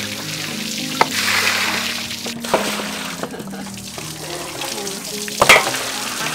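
Raw cow leg pieces being washed by hand in a large aluminium basin: wet slapping and splashing water, with a few knocks against the metal, the sharpest about five and a half seconds in. Background music plays throughout.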